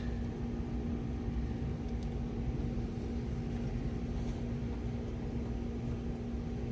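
Steady low machine hum with a constant electrical buzzing tone, from running equipment such as HVAC machinery.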